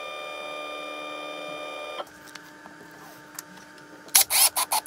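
CNC router's stepper motors whining steadily as the machine probes the Z height onto a touch plate, stopping suddenly about two seconds in. Near the end, a cordless drill drives a screw into an acetal block in several short bursts.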